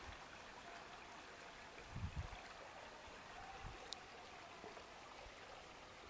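Faint, steady rush of a small forest river flowing through fallen logs and branches, with a few soft low thumps about two seconds in.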